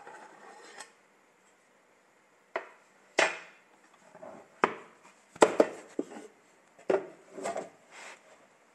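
Metal loaf pan knocking and clattering against a wooden board as the freshly baked loaf is handled with oven mitts and turned out of the pan. There are about eight or nine sharp, irregular knocks, some in quick pairs.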